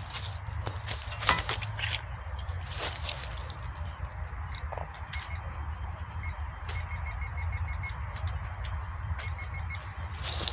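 A shovel chopping into the soil a few times, then a metal detector's electronic beeping in short rapid runs, about seven or eight beeps a second, from about four seconds in until near the end.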